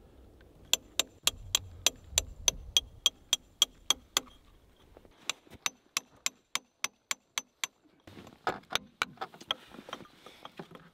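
Hammer blows on a rusty steel tractor wheel hub and axle, each strike ringing metallically, about four a second. After about 8 seconds the blows turn more irregular and duller.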